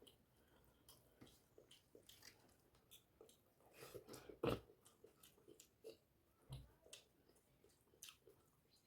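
Close-up chewing and wet mouth sounds of a person eating rice and fish curry: soft irregular smacks and clicks, with one louder thud about halfway through.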